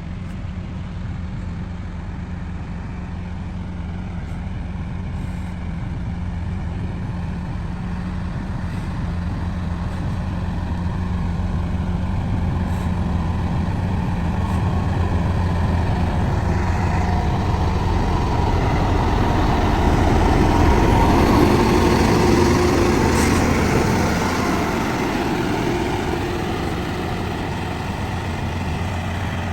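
Komatsu bulldozer's diesel engine running steadily under working load. It grows louder and busier about two-thirds of the way through, then eases off.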